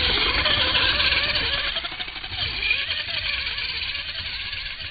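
Electric RC buggy on a 3S LiPo battery driven hard through loose sand: motor whine and the hiss of tyres flinging sand as it passes close, fading as the buggy speeds away.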